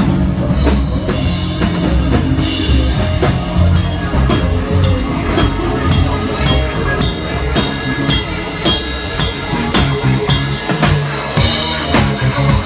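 Live band music: a drum kit keeping a steady beat over bass and other pitched instruments.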